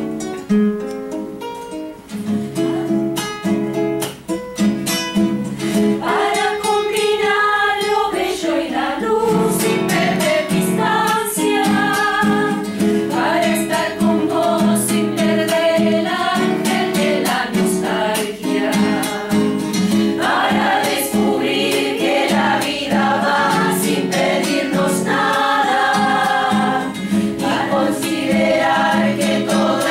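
Mixed choir singing a folk song in Spanish with acoustic guitar accompaniment; the first few seconds are sparser, mostly guitar, before the full choir comes in.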